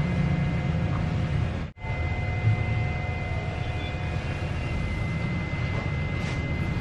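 Steady low machine hum and whir with a thin, steady high tone over it, cut off abruptly for a moment about two seconds in before resuming.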